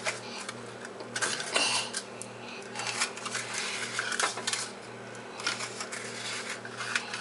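Paper cupcake liners rustling and lightly tapping as they are set one at a time into a metal muffin tin, with scattered short clicks and rattles.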